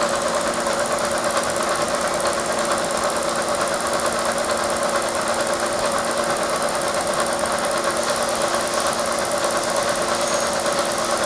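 Bridgeport milling machine running steadily, its spinning cutter head taking a light facing cut across a thin plastic part held down on a vacuum chuck: a constant machining hum with a few steady tones.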